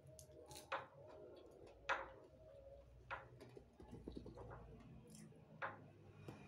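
A few faint, scattered sharp clicks as hands work a plastic netting needle and nylon fishing net. The loudest click comes about two seconds in.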